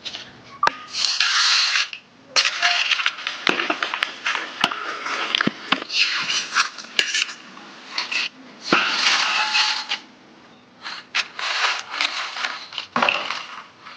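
Repeated bursts of crisp crunching and rattling from fried potato chips, with a few sharp clicks among them.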